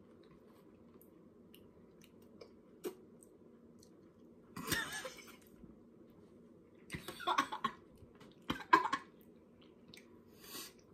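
Faint wet mouth clicks from sucking on a salted lemon half. Then, starting about four and a half seconds in, a woman's stifled laughter through the hand over her mouth, in several short bursts.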